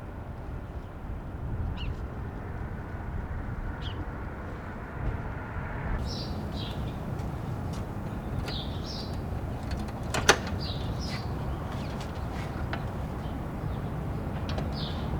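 Outdoor ambience: a steady low rumble with short, high, bird-like chirps scattered through it, and one sharp click about ten seconds in.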